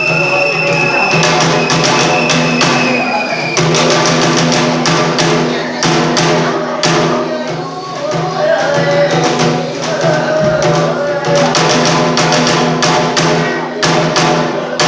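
Bitchū kagura music: a drum struck in a quick, dense rhythm, with a high note held for the first few seconds and a wavering sung or played line later on.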